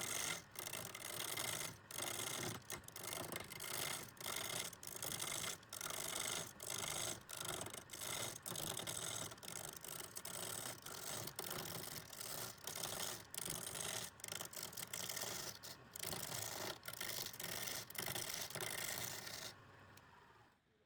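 Wood being scraped or cut with a steel tool, as in woodturning: a continuous rasping noise broken by many short gaps as the tool lifts and bites again, stopping near the end.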